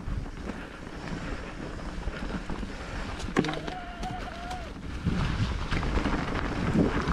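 Electric mountain bike riding over a rough trail: wind buffets the microphone and the bike rattles and knocks over the ground. A brief steady squeal comes about three and a half seconds in, and the noise grows louder from about five seconds.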